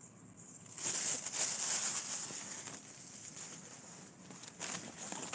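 Thin disposable plastic glove crinkling and rustling as it is handled, loudest from about a second in for a second and a half, then quieter, with a couple of short rustles near the end.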